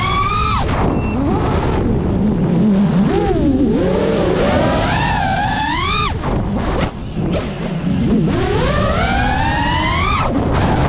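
5-inch FPV quadcopter's motors whining, the pitch climbing and swooping with the throttle and cutting off suddenly about a second in, near six seconds, and near the end as the throttle is chopped for flips and dives, over a steady rush of wind and prop wash.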